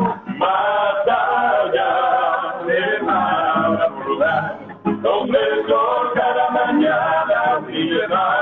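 Male voices singing a flamenco-style song in long, wavering, ornamented phrases, with a short break about five seconds in. The sound is thin and lacks its high end.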